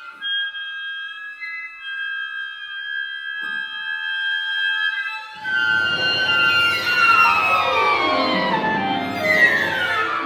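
Contemporary classical quintet of flute, clarinet, piano, violin and cello playing: a few quiet held high tones, then about five seconds in a sudden, louder dense mass of many downward-sliding glissandi.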